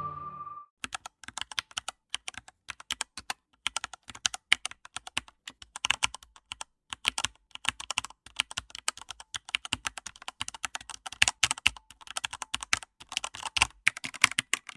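Typing on a computer keyboard: fast, irregular key clicks that start about a second in and keep going with only brief pauses.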